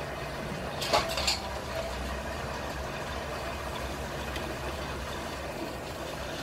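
Green chillies are tipped from a clay bowl into a clay pot of frying masala, with two sharp clinks about a second in, then a wooden spoon stirring. A steady low rumble runs underneath.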